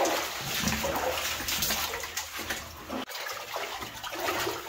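Boots wading and sloshing through shallow water along a flooded mine passage, in irregular splashy steps with a brief pause about three seconds in.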